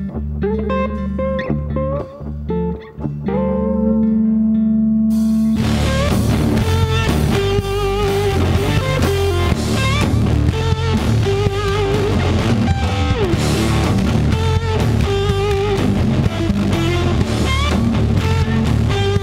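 Guitar-led rock music: sparse plucked guitar notes at first, then a few seconds in the music grows louder and fuller with a steady beat.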